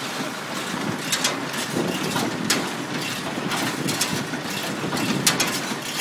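Massey Ferguson hay baler running behind a tractor: a steady mechanical rattle with irregular sharp clicks from its moving parts.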